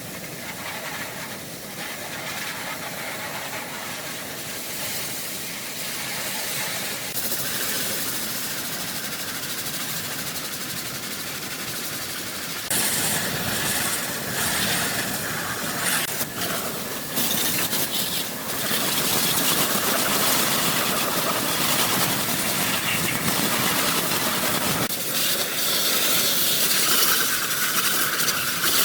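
A loud, steady hissing rush, like a jet of air or spray, that gets louder about 13 seconds in and again near 25 seconds in.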